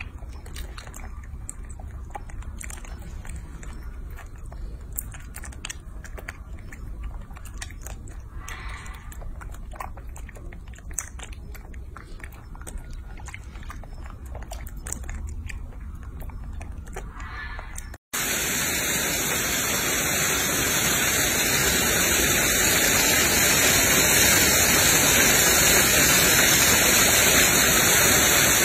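Baby macaques chewing and sucking on candy, many small wet mouth clicks and smacks. About two-thirds of the way through it cuts abruptly to the louder, steady rush of a small waterfall splashing down a rock face.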